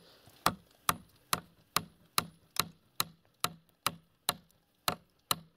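A hammer driving a nail into a wooden board with quick, even blows, about two a second, a dozen strikes in all. The nail, slightly bent to begin with, goes in crooked.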